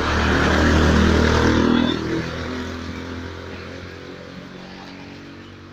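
A motor vehicle engine passing close by, at its loudest about a second in and then slowly fading away.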